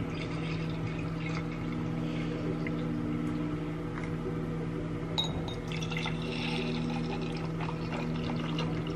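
Coffee machine brewing: its pump hums steadily while coffee streams into glass mugs with a pouring, trickling sound.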